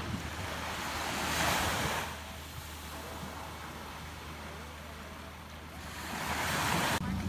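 Surf washing on a beach, with wind rumbling on the microphone; the wash swells twice, about a second in and again near the end.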